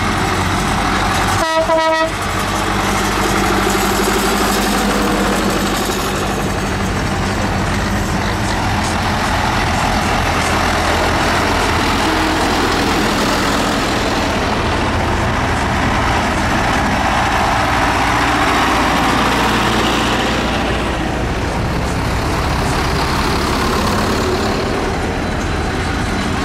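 Tractor engines running steadily as tractors drive past in a parade, with a short horn toot about a second and a half in.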